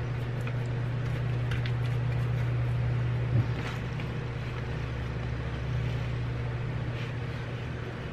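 A steady low machine hum, like an appliance or fan motor running, with a few light taps and knocks as a basting brush is dabbed over potatoes in a foil pan and dipped into a butter dish. The clearest knock comes about three and a half seconds in.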